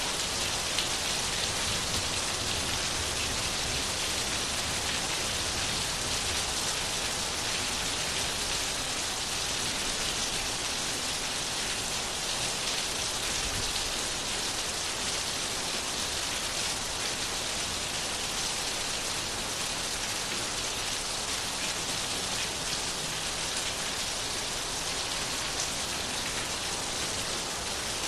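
Steady rain falling and pattering on a surface, an even hiss with no breaks and no thunder.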